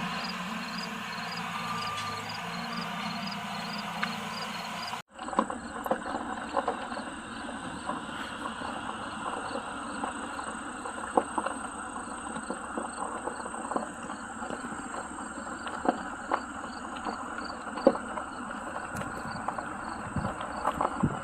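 Insects chirping in a steady pulsing rhythm, about three pulses a second, over a constant outdoor haze. The sound cuts off abruptly about five seconds in and resumes, after which scattered sharp knocks and clanks are heard.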